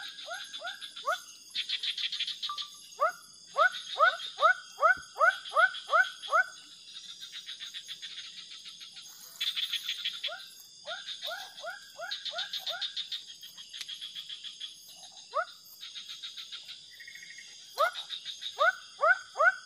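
Frogs calling: runs of four to eight short, rising notes in quick succession, repeated in bouts. Between the bouts come rapid, higher pulsing trills, over a steady high insect drone.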